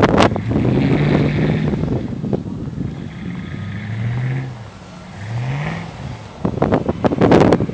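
A car engine revving in the distance: a steady hum, then its pitch drops and, about a second later, rises again as the throttle comes on. Wind buffets the microphone loudly at the start and again over the last second or so.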